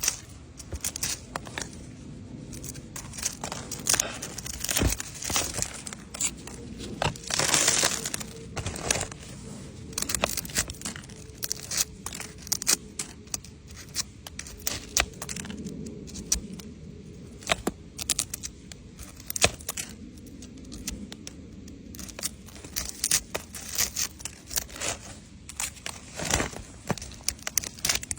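Leaves crinkling and tearing as they are picked, in an irregular run of small crackles and clicks.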